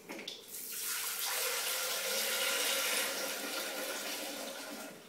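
Tap water running into a stainless steel Thermomix mixing bowl, filling it with a litre of water for steaming. The flow tapers off near the end.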